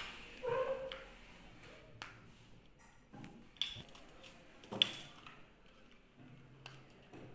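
Plastic bottle neck and its screw cap being handled while moulding pellets: a handful of faint, short clicks and knocks spread over several seconds, the first with a brief tone.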